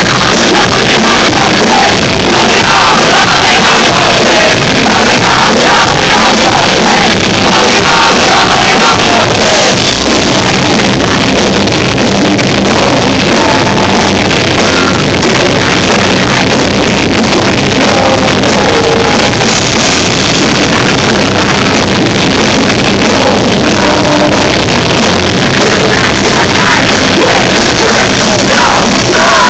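Rock band playing live, heard loud and steady through a phone's microphone, with the sound quality poor. Drums and guitars keep going without a break, with singing over them.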